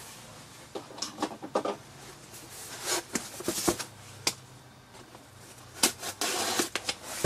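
A cardboard box being handled and turned over on a table: scattered taps, knocks and rustles, with a longer scraping rustle near the end.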